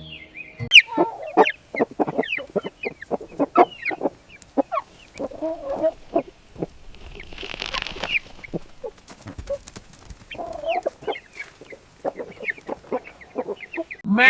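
Chickens clucking: many short, sharp clucks in quick irregular succession, with a brief rustling burst about halfway through.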